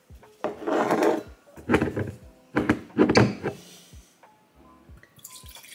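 Background music with a steady beat. Near the end, wine starts pouring from the bottle into a glass, a steady splashing trickle.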